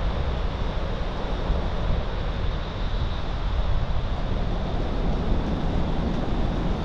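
Wind buffeting the microphone: a steady, rumbling noise with an even hiss above it.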